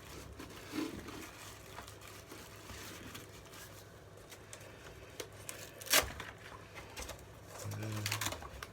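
Faint rustling and handling of packaging and kit parts, with one sharp click about six seconds in.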